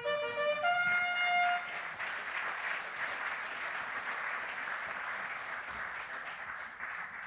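A short musical sting of a few held notes in the first two seconds, over audience applause that carries on steadily after the notes end.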